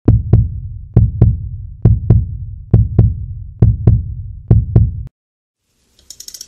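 Heartbeat-style sound effect: six pairs of deep thumps, about one pair a second, timed to a countdown, cutting off sharply about five seconds in. After a short silence, faint crackling starts near the end.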